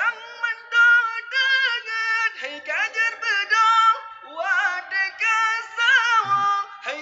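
Young man singing an Indonesian sahur wake-up call into a mosque microphone, the call that rouses people for the pre-dawn Ramadan meal. It is a melody of long held notes with wavering, ornamented pitch turns, sung phrase after phrase with short breaks.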